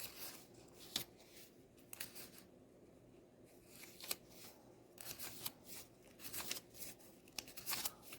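Paper quick start leaflet rustling as it is handled and unfolded, with scattered light clicks and taps, busier in the second half.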